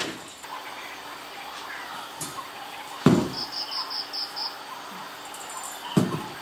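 A cricket chirping: one short run of six quick, evenly spaced high pulses in the middle. Two heavy low thumps, the loudest sounds, come just before the chirps and again near the end.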